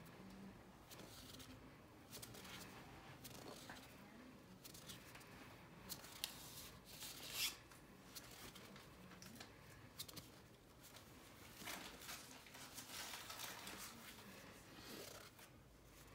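Faint rustling and sliding of trading cards and their pack wrapper being handled and flipped through, with scattered short crackles.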